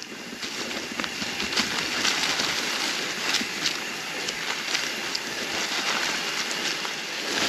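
Mountain bike tyres rolling fast over a trail covered in dry fall leaves: a steady crackling rustle with many small clicks and snaps.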